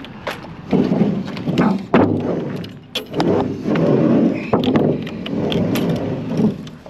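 Paint cans and boxes being handled and shifted between vehicles: repeated scraping and sliding with sharp knocks and metal clinks as they are set down.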